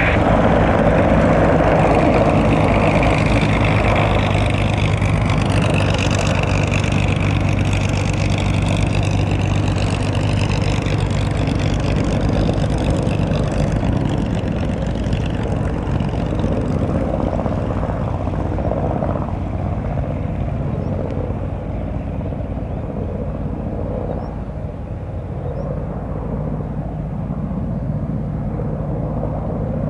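Sikorsky S-92A helicopter in departure flight: the steady beat of its main and tail rotors with the whine of its twin turboshaft engines. Both grow fainter as it climbs away, and the whine fades out about halfway.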